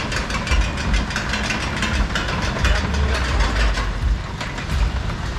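Steel roller coaster running: a steady low rumble with rapid clattering.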